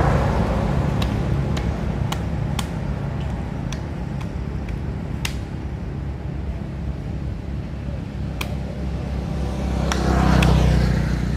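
Steady low rumble of an engine running, with a few sharp clicks scattered through and a louder swell of noise near the end.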